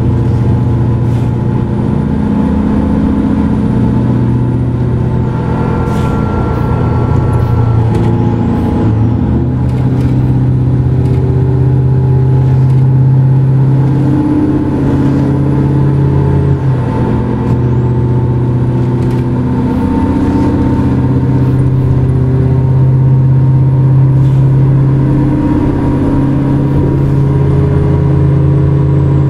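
Semi truck's Caterpillar 3408 V8 diesel engine running steadily on the road. Its note breaks off and picks up again twice, about a third and just over halfway through.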